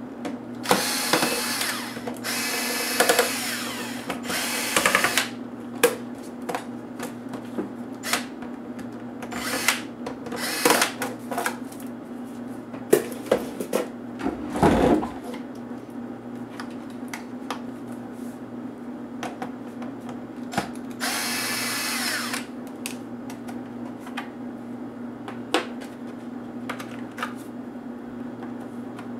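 Cordless electric screwdriver whirring in short runs of about a second, backing out small screws from a laptop case, about half a dozen times. Between runs come sharp clicks and light clatter of screws and plastic parts being handled, over a steady low hum.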